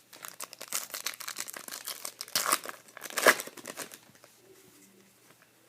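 Foil trading-card pack wrapper crinkling and tearing as a pack is ripped open, a dense crackle with two louder rips about two and a half and three and a half seconds in, then quiet.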